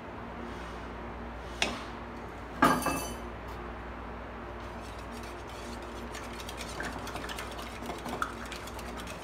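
Two sharp clinks on the ceramic bowl, the second ringing briefly. From about halfway through, a wire whisk beats raw eggs in the bowl: a fast, steady run of light clicks and scrapes against the china.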